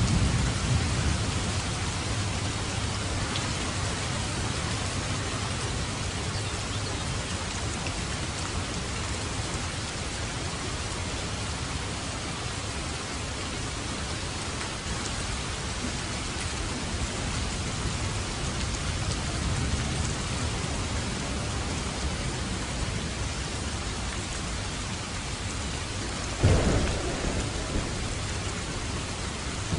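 Steady heavy rain with low rolls of thunder. A sudden loud thunderclap comes near the end.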